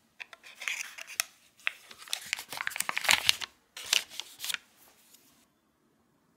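Foil-lined paper butter wrapper being unfolded from a block of butter, crinkling and crackling in a busy run of rustles that stops about four and a half seconds in.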